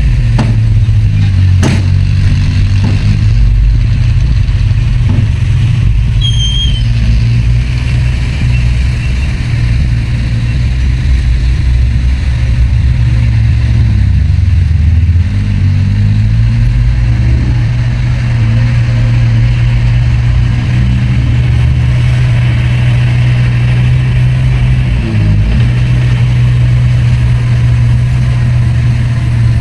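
Heavy diesel engine of earthmoving machinery running steadily under load, its note sagging briefly about halfway through, with a few sharp clanks near the start.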